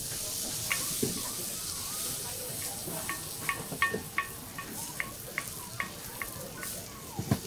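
Jianbing batter sizzling on a hot round iron griddle while it is spread out with a wooden spreader. A run of short light clicks, about two a second, comes in the second half, and a single dull knock sounds near the end.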